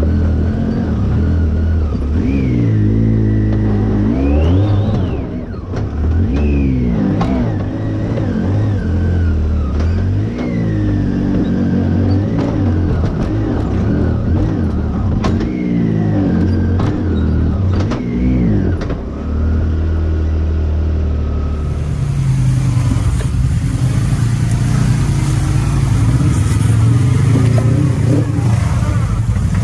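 Side-by-side UTV engine revving up and down in repeated short bursts while crawling over rocks, with occasional knocks from the tyres and chassis on stone. Past two-thirds of the way in, a cut brings a steadier, lower engine sound as a Kawasaki KRX climbs through the rocks.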